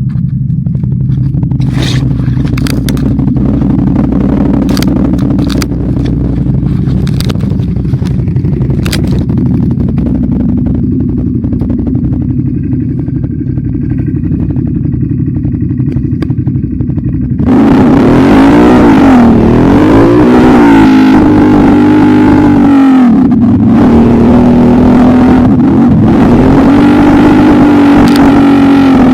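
ATV engine running at low revs with scattered clatter and knocks. About two-thirds of the way through it turns abruptly louder, its pitch swinging up and down as the throttle is worked, then holding a steady higher note.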